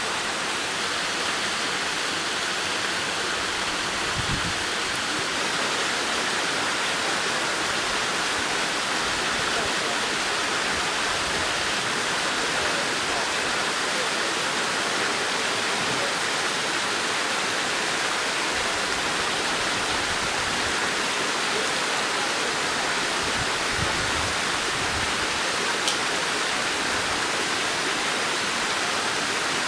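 Steady rush of a moorland stream pouring over the lip and down into a deep limestone pothole shaft, with a few soft low rumbles.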